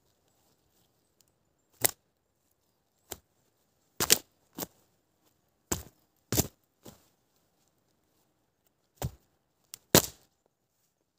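A boot kicking a rotten pine pole: about ten sharp knocks and cracks, some in quick pairs, loudest about four seconds in and near the end, as the decayed wood gives way and breaks.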